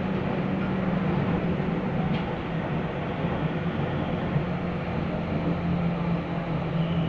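Electric commuter train of Athens Metro Line 1 running along the track, heard from inside the carriage: a steady rumble of the wheels on the rails with a constant low hum.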